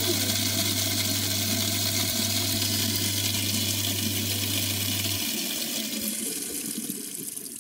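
InSinkErator food waste disposer running with tap water pouring down the drain: a steady motor hum under the rush of water. The motor cuts off suddenly about five seconds in, and the water noise then fades away.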